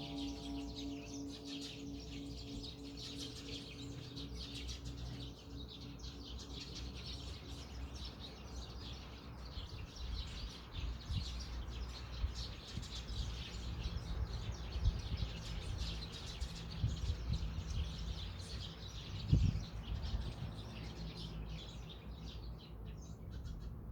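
Many small birds chirping continuously over a low outdoor rumble, while the hum of a church bell's last stroke dies away over the first few seconds. A dull thump, the loudest sound, comes about three-quarters of the way through.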